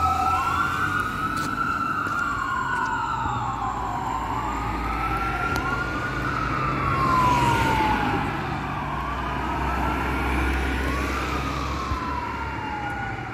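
Fire engine's siren wailing in slow rising-and-falling sweeps, each a few seconds long, over a low rumble, growing fainter near the end as the engine drives off on a call.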